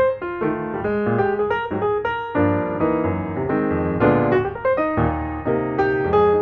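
Background piano music: a lively run of keyboard notes and chords.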